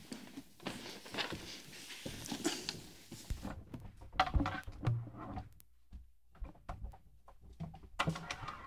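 Scattered knocks, taps and rustles of acoustic guitars being lifted off their stands and handled, with a few louder thumps about halfway through.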